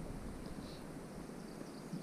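Faint, steady wind noise with a fluttering low rumble on the microphone, over soft water noise, on a windy day on the water. No distinct event stands out.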